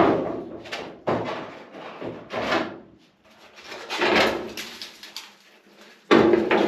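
Steel trunk lid of a 1972 Chevy Nova clunking and scraping against the car body as it is handled and fitted over the trunk opening. A sharp clunk at the start, several more knocks and rubs, and another loud clatter near the end.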